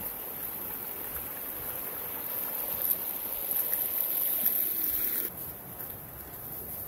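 Small woodland stream trickling and splashing down over rocks. It grows louder a few seconds in, then drops off sharply about five seconds in.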